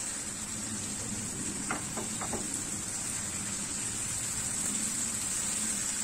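Mustard sauce sizzling steadily in a nonstick pan on lowered heat while hilsa steaks are stirred and turned with a silicone spatula, with a few faint spatula taps about two seconds in.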